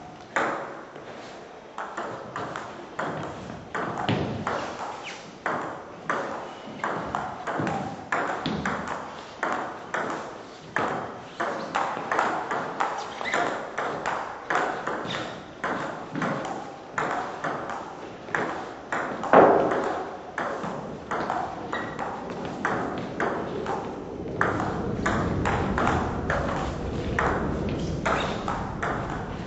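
Table tennis ball hit back and forth in a long rally: sharp clicks of the celluloid ball on bats and table, about two a second, echoing in a large hall. One hit near the middle is much louder, and a low rumble comes up under the clicks near the end.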